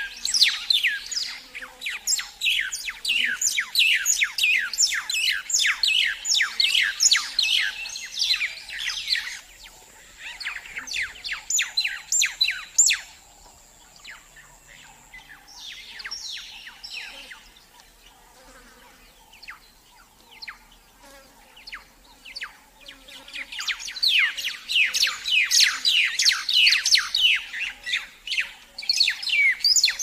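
Baya weaver chattering: a fast run of sharp, downward-sweeping chirps, about four a second. It comes in two long spells with sparser chirps between them. A thin, steady, high whine sounds for a few seconds during the first spell.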